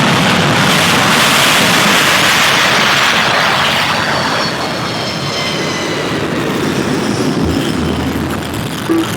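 Airliner engines at takeoff power during the takeoff roll: a loud, steady rushing noise that eases slightly about halfway through, with a faint high whine.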